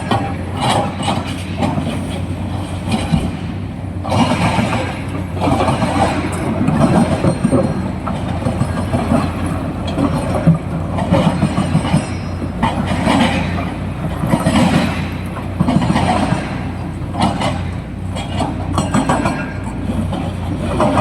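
Excavator's diesel engine running steadily under work, with repeated clattering and rattling every second or two as it digs and loads material into a truck.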